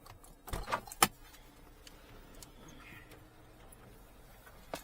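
A car engine idling while the car is parked, with a few handling clicks and one sharp knock about a second in.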